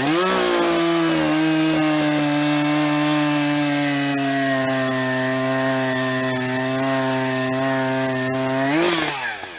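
Two-stroke chainsaw revved up and held in a long cut through a log, its pitch sagging slightly under load for about eight seconds. Near the end it briefly revs higher as it breaks through, then the throttle is released and it drops away.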